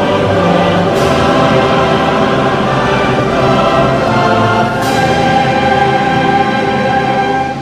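Choral music with orchestra, the voices holding long chords.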